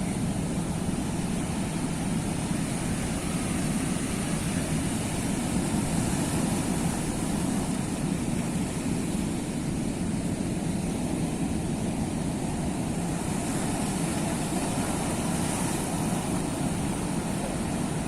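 Sea surf: waves washing ashore as a steady, even rush of noise.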